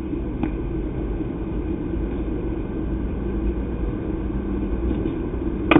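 Steady outdoor background rumble and hiss at a baseball field, with a faint click about half a second in and a sharp crack near the end.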